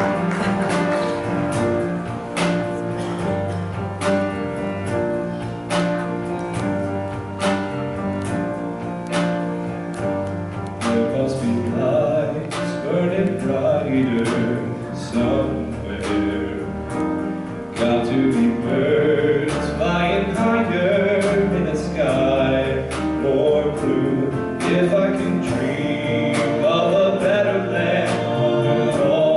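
A male vocal quartet singing into handheld microphones in close harmony, a low bass voice underneath, over a steady beat of sharp clicks.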